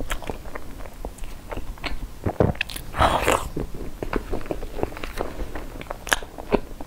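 Close-miked wet chewing and lip smacks from a mouthful of soft, cream-filled chocolate crepe roll, with many small sticky mouth clicks. A short rustle comes about three seconds in.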